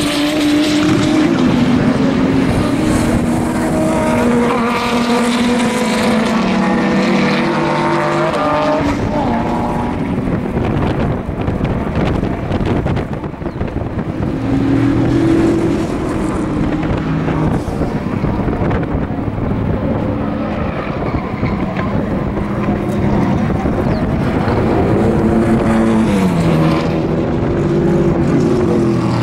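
Race car engines running hard as several sports and GT cars pass one after another through a corner. Engine pitch steps up and down repeatedly as they brake, change gear and accelerate.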